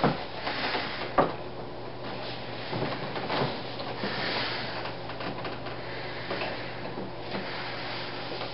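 A few sharp clacks of high heels on a hardwood floor, the loudest just after the start and about a second in, with soft rustling between them and a low steady hum underneath.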